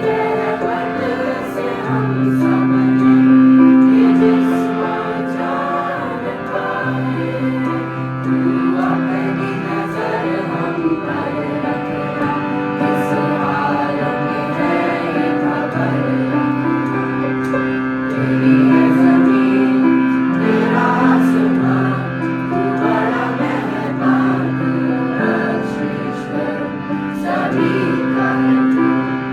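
A group of voices singing a prayer in chorus, over an instrument holding long sustained chords.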